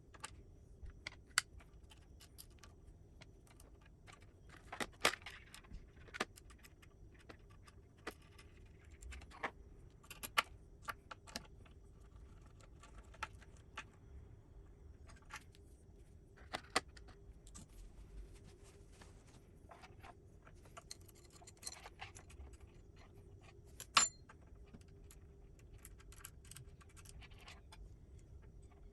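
Scattered metallic clicks, clinks and jangles of hand tools, sockets and bolts being handled during work on an electric skateboard's truck mounting, over a faint steady hum. A few sharper knocks stand out, the loudest about 24 seconds in.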